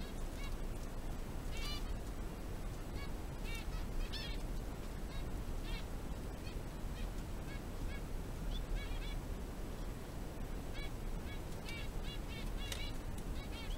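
Guinea pigs giving short, high squeaks in quick little groups throughout, while feeding, over a steady low hum.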